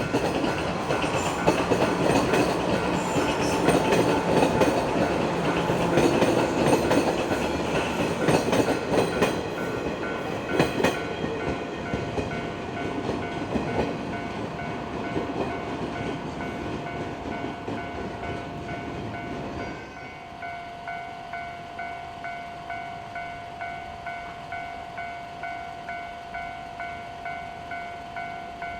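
A JR 115-series electric train runs through a level crossing, its wheels clattering over rail joints, and fades after about ten seconds. The crossing's warning bell rings steadily throughout, about one and a half dings a second, and stands out clearly once the train has gone.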